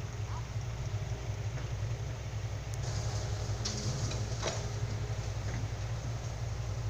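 A heavy diesel engine idling with a steady low hum, with a few light clicks and knocks over it about halfway through.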